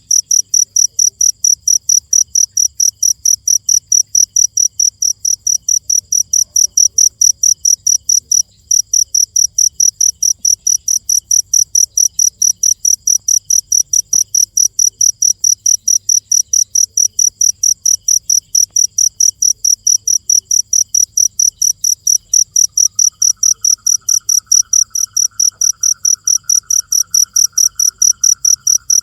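A cricket chirping loudly and evenly, about three high-pitched chirps a second, with one short break. A fainter, lower trill joins near the end.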